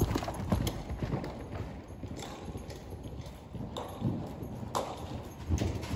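Hoofbeats of a horse circling on a lunge line on the dirt footing of an indoor arena: repeated dull thuds, loudest around the start as the horse passes close by.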